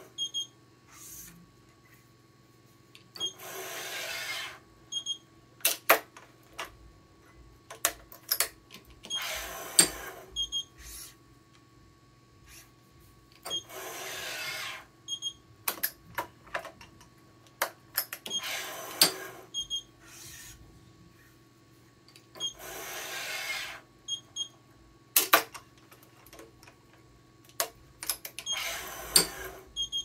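Yonex ES5 Pro electronic stringing machine tensioning badminton string in repeated cycles, about every five seconds. Each cycle is a second-long pull of the tension head, with short electronic beeps before and after it. Sharp clicks of the clamps and gripper come between the pulls, over the machine's steady hum.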